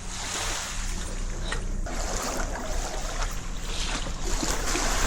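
Wind rushing over the microphone, with waves washing, getting louder about two seconds in.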